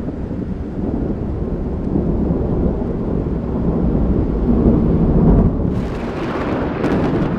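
A deep, loud rumbling noise with most of its weight in the bass, swelling slightly, as in an intro sound-effects bed. About six seconds in, a brighter hissing layer comes in, with a sharp crack shortly before the end.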